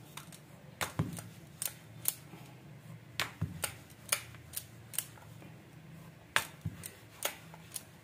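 Wooden rolling pin rolling out a disc of dough on a hard worktop, with irregular sharp clicks and taps, about two or three a second, as the pin knocks against the surface.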